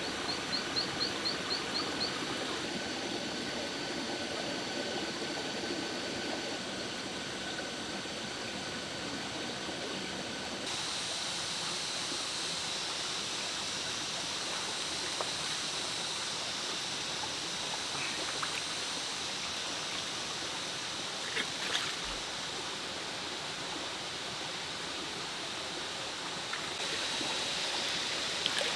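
Outdoor forest ambience of a stream running steadily, with a steady high-pitched chirring over it and a quick run of about seven chirps in the first two seconds. The background changes abruptly a few times, as at cuts between shots.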